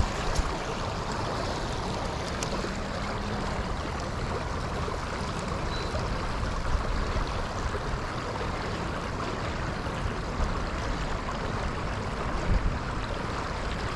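Steady rush of water pouring over a small concrete drainage spillway at the lake's edge, with wind buffeting the microphone.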